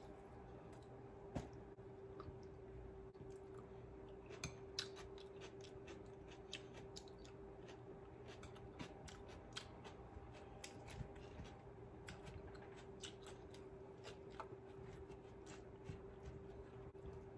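Faint eating sounds: chewing with many small crisp clicks and crunches scattered throughout, over a steady low hum.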